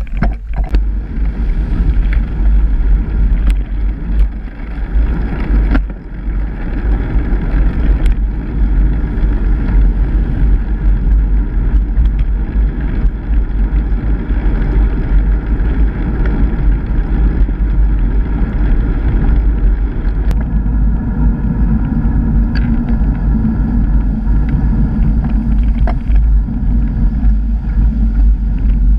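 Steady, loud low rumble of wind and road noise on the microphone of a camera riding on a bicycle, with a few sharp knocks scattered through it.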